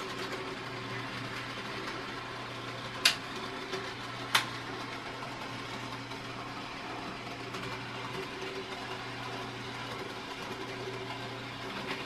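DCC-controlled N gauge model locomotive and wagon running around the track, a steady motor hum with light wheel noise. Two sharp clicks come about three and four seconds in.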